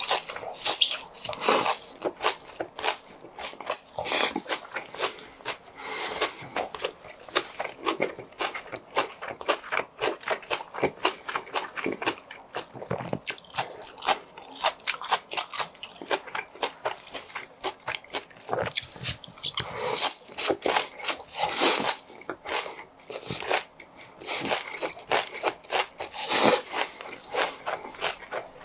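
Close-miked chewing: crisp, wet crunching of raw minari (Korean water parsley) stalks eaten with pork belly, many quick crunches with a few louder bites.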